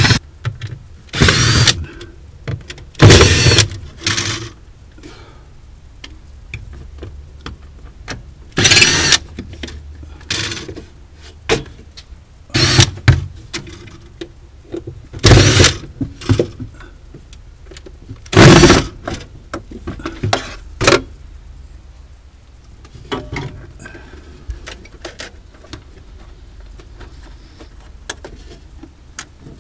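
Milwaukee cordless drill/driver running in a series of short bursts, about seven loud ones and a few weaker ones, as it backs screws out of the ice maker's mounting frame. The bursts stop after about 21 seconds, leaving faint clicks.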